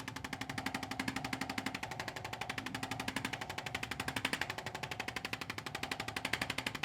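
Handheld chiropractic percussion instrument running against the spine, a fast, even rattle of taps over a steady motor hum, used to loosen up the spine before adjustment. It stops briefly near the end and starts again.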